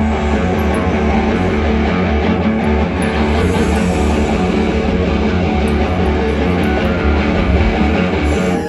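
Live hard rock band playing an instrumental passage: electric guitars and drums, loud and dense, through a stage PA.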